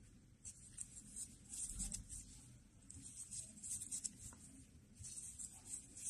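Faint scratchy rustling of cotton yarn drawn through loops by a metal crochet hook as single crochet stitches are worked, coming in short irregular bursts.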